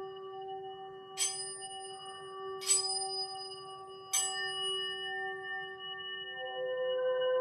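Singing bowls ringing: one bowl holds a steady sustained tone while three bright metallic strikes ring out about a second and a half apart. Near the end a second, deeper ringing tone swells in.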